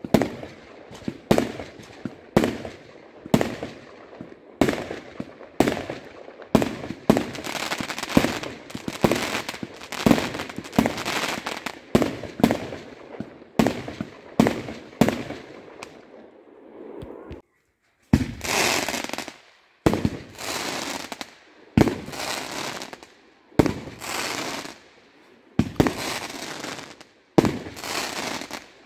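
Aerial fireworks bursting in quick succession, sharp bangs about twice a second with crackling between them. There is a brief gap a little past halfway before the bangs resume.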